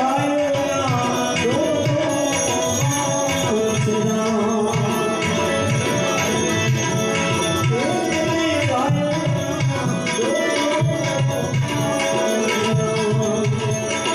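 Live Gujarati devotional bhajan: a harmonium playing held chords with tabla keeping a steady rhythm, and a voice singing gliding phrases over them.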